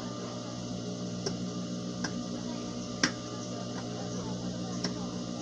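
Scissors snipping a few times as they trim the coat's hair cloth, each cut a sharp click, the loudest about three seconds in, over a steady low hum.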